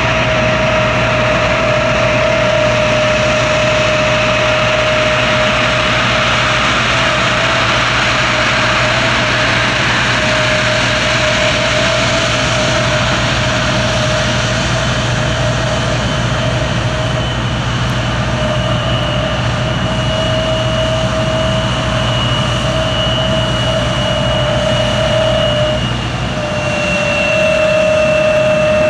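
The General Electric CF34 turbofans of an Embraer 170 jet airliner running steadily, a strong whine with a fainter high whistle above it. The whistle steps down slightly near the end.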